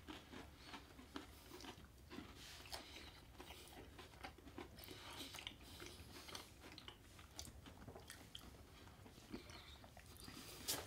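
Faint chewing of a mouthful of Hershey's Cookie Layer Crunch chocolate bars, with small scattered crunches and crackles of the cookie layers. One sharper click near the end.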